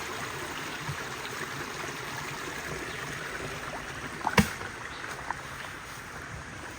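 Steady rush of flowing river water, with one sharp knock about four and a half seconds in.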